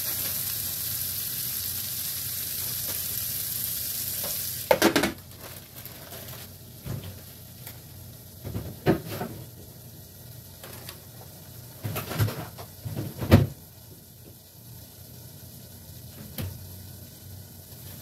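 Sliced mushrooms, onion and shredded red cabbage sizzling steadily in bacon fat in a frying pan. A little over four seconds in, a glass lid clatters onto the pan and the sizzle becomes much quieter and muffled, with a few light knocks after.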